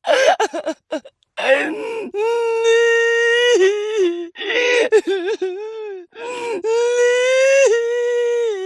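A female voice crying: a few short, choppy sobs, then long, high wails held at a steady pitch, each breaking off before the next.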